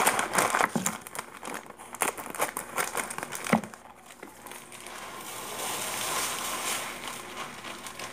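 A plastic bag of rice crinkling as it is handled, with a sharp click about three and a half seconds in. A steady hiss of rice grains pouring into a plastic storage canister follows.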